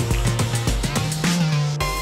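Background music with a steady beat over a bass line; near the end the beat drops out, leaving held notes.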